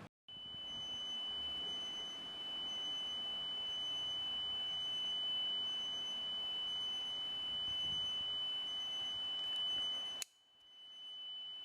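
A steady, high-pitched electronic beep tone, held for about ten seconds, that cuts off abruptly and then sounds again briefly near the end.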